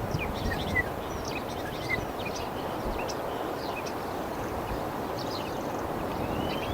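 Songbirds chirping and singing in many short, quick high notes over the steady rush of ocean surf.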